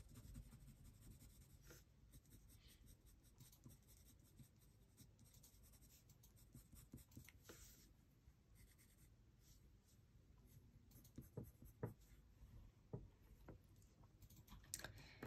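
Faint scratching of a colored pencil stroking on drawing paper in short, light shading strokes, with a few light ticks near the end.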